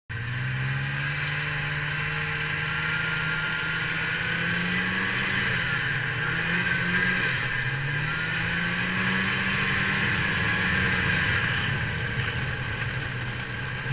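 Snowmobile engine running under way over snow, its pitch rising and falling several times with the throttle, with a high whine over the engine note.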